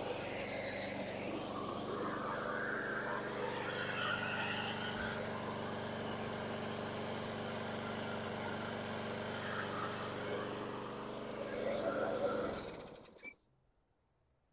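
Small single-cylinder Briggs & Stratton 725EXI 163cc mower engine running steadily after its carburetor was cleaned, then dying away to silence about 13 seconds in.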